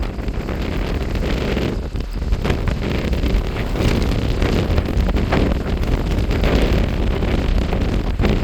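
Strong gusting wind buffeting the microphone: loud, unsteady rushing noise with a heavy low rumble that surges and eases from moment to moment.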